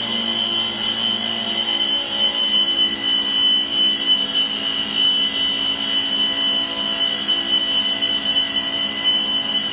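XCORT electric circular saw running steadily, a constant high-pitched motor whine with no change in speed.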